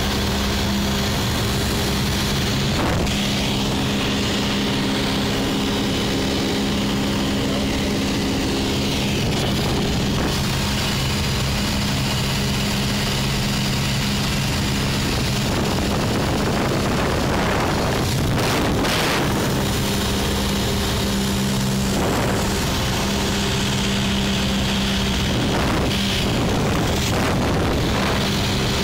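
Single-engine light propeller airplane in flight, its engine and propeller droning steadily at a constant pitch, heard from inside the cabin.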